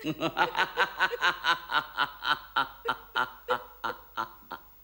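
A man's drawn-out laugh: a run of quick 'ha' pulses, about five a second, that trails off and fades near the end.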